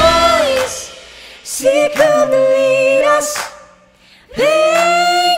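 Song vocals in close harmony, largely unaccompanied: voices hold long sung notes in parallel parts, drop out briefly about three and a half seconds in, then come back on a new held chord.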